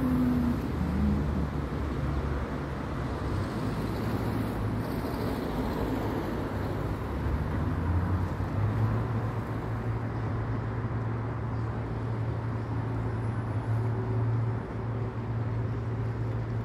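Steady outdoor background noise: a constant low rumble with a hiss above it and no distinct events.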